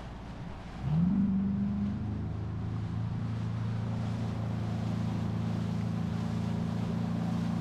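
Bass boat's outboard motor revving up, its pitch rising about a second in and then holding steady as the boat runs at speed, over a rush of wind and water.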